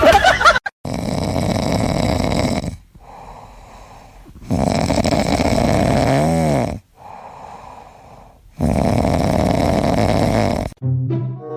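A sleeping pet snoring: three long, loud snores about four seconds apart, each followed by a quieter breath out.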